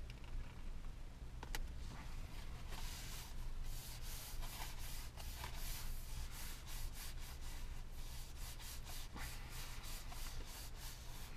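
Hands rubbing a sticker down onto a truck sun visor: a run of short, quick rubbing strokes from about three seconds in, after a single faint click.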